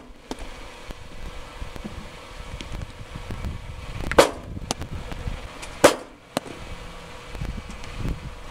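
Two sharp smacks of baseballs striking a catcher's gear during a receiving and blocking drill, about a second and a half apart, over a low outdoor rumble.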